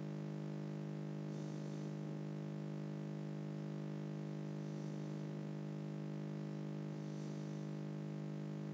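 Steady low electrical hum with a buzzy edge, holding one unchanging pitch and level.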